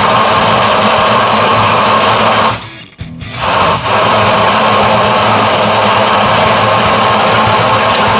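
Countertop blender motor running at full speed, churning a jar full of Orbeez water beads, with a steady high whine. About two and a half seconds in, the motor winds down. It starts again suddenly about half a second later and is back at full speed within a second.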